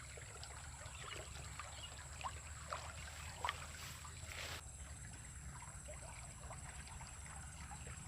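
Faint trickling water in a small drain ditch: scattered little drips and splashes over a low steady hum.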